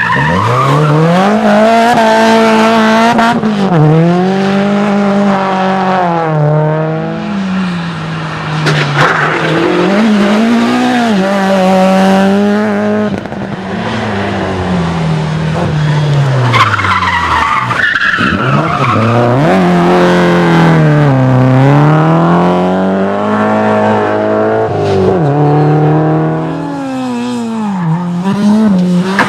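Rally cars driven hard, engines revving up and dropping again and again as they change gear and lift off, with tyres skidding and squealing.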